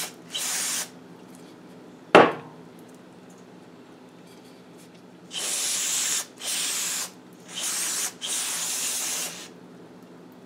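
Aerosol carburettor cleaner sprayed in short hissing bursts onto a scooter carburettor body to clean it: one burst near the start and four in quick succession in the second half. A single sharp knock about two seconds in is the loudest sound.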